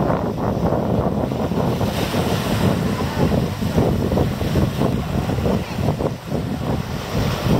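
Steady, loud wind buffeting the microphone, a fluttering rumble with no distinct voices.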